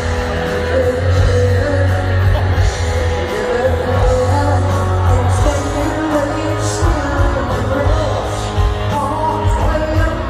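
Live rock band playing with a singer over the concert PA, heard from far back on the amphitheatre lawn.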